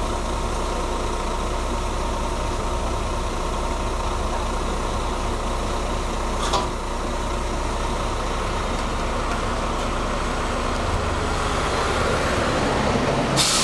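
Heavy diesel engine idling steadily, with a short knock about halfway through and a louder, sharper knock near the end.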